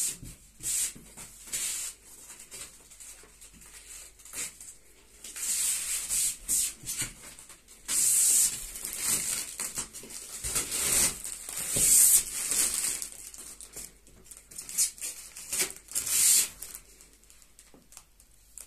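Plastic protective wrap being peeled off and crumpled: an uneven series of hissy rustles and swishes, loudest about eight and twelve seconds in.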